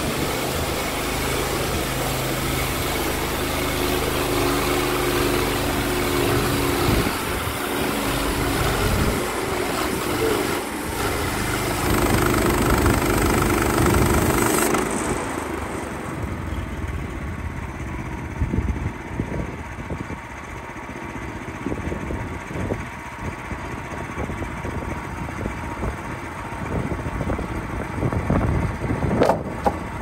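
Petrol engine of a Woodland Mills HM126 portable bandsaw mill running at working speed while the band blade cuts along a live oak log. About halfway through the sound drops to a quieter, lower running, as at the end of the cut with the engine throttled back toward idle.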